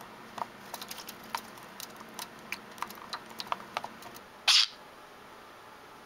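Wet budgerigar at a mirror on a metal tray: a run of small, irregular clicks and taps, then one short, loud rustling burst about four and a half seconds in.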